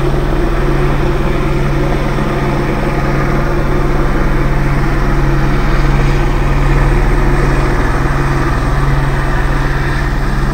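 A steady, low engine drone that holds one pitch throughout.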